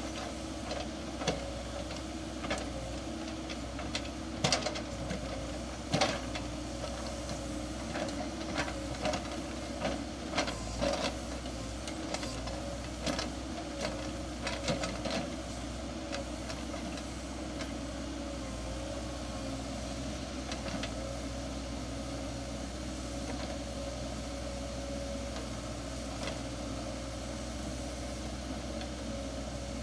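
Excavator engine running steadily, with scattered sharp knocks and clanks through the first half that then die away.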